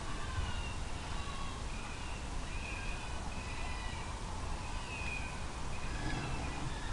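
Electronic predator caller (FOXPRO) playing short, high squealing animal calls, repeated about once a second. The calls are meant to lure in a fox or coyote.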